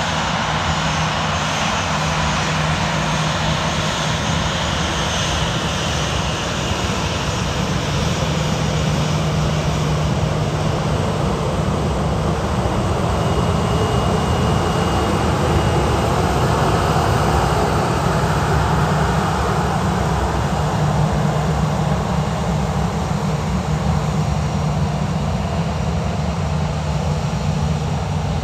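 Boeing 737-800's CFM56 jet engines running at low power as the airliner taxis past on a wet taxiway: a steady rumble with a low hum, swelling slightly as the aircraft comes closest midway.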